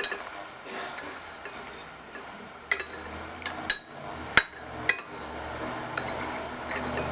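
A few sharp clinks and knocks of a spoon against a bowl or soup container while eating, with a low steady hum coming in partway through.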